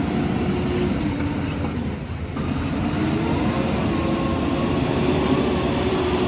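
JCB 3DX backhoe loader's diesel engine working hard as the machine struggles in deep mud. Its pitch dips briefly about two seconds in, then rises and holds.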